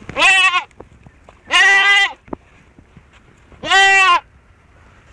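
Young goat kid bleating three times, each call about half a second long, a second or two apart.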